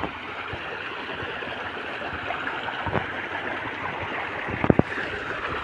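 Steady rush of flowing or churned water, with a few short sharp knocks about three seconds in and again near the end.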